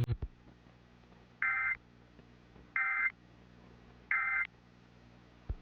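Emergency Alert System end-of-message signal: three short bursts of warbling digital data tones, about 1.4 seconds apart, marking the end of the alert.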